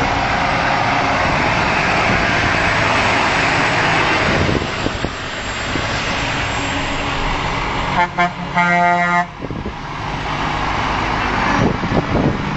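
Semi-trucks passing close by, their diesel engines and tyres loud for the first few seconds. About eight seconds in, a truck's air horn blasts once for just over a second and cuts off sharply.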